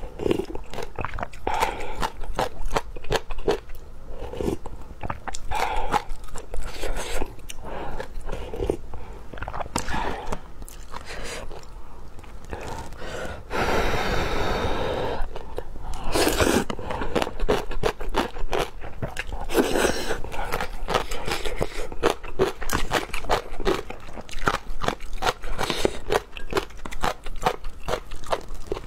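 Close-miked eating of luosifen rice noodle soup: continuous chewing with many quick mouth clicks and smacks, and a longer slurp of noodles about halfway through.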